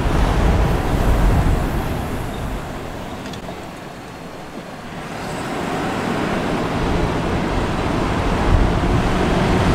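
Pickup truck driving slowly: steady low road and tyre rumble with engine noise, easing off about four seconds in and building again afterwards.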